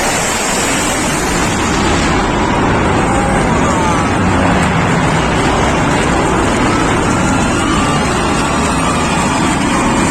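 Jet noise from a Sukhoi Su-30MKV fighter's twin turbofan engines in a display flight: a loud, steady roar with faint tones gliding in pitch as the aircraft moves.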